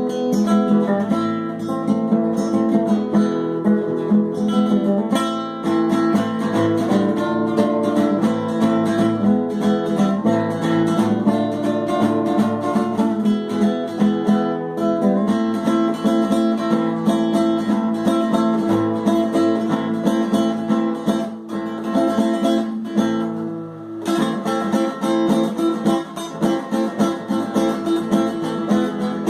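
Acoustic guitar music: plucked notes and strummed chords played continuously, with a brief break a few seconds before the end.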